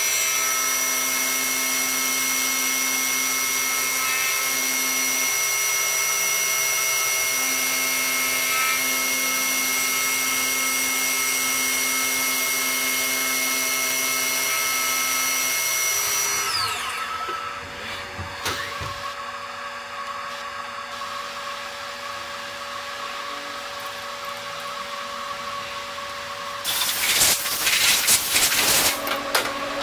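CNC vertical mill's spindle running an end mill through a part clamped in a vise: a steady machining whine with several high tones. About halfway through, the spindle spins down, falling in pitch, leaving a quieter machine hum with a couple of knocks, and near the end a few seconds of loud rushing noise.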